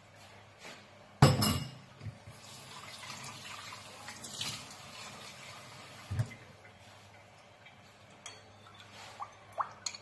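Kitchen sounds: a loud clunk of crockery being set down about a second in, then a few seconds of water running, and another knock near six seconds in, with light clinks near the end.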